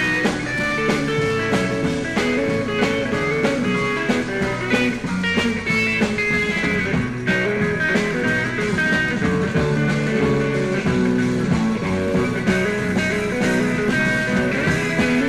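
Instrumental break of a psychedelic rock song: guitar playing over a band with a steady beat.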